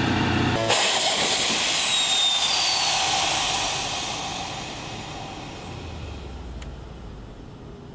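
Boeing Insitu ScanEagle drone's small piston engine and propeller, heard in flight just after launch. A sudden loud rushing sound takes over just under a second in, then fades steadily over several seconds as the drone moves away.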